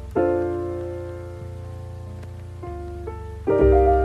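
Background music: piano chords over a steady low bass, struck near the start, again about two and a half seconds in and once more a second later, each ringing and fading away.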